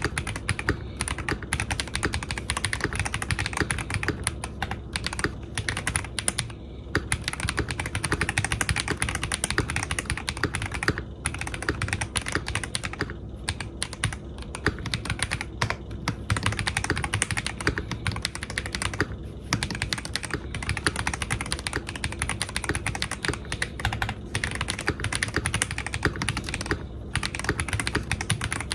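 Typing sound test on an NJ80 mechanical keyboard with Holy Panda tactile switches on a polycarbonate plate and Cherry-profile PBT keycaps: a fast, continuous run of key clacks with a few short pauses.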